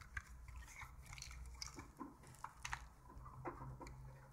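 Faint handling of a plastic CD jewel case in the hands: small scattered clicks and crackles over a low steady hum.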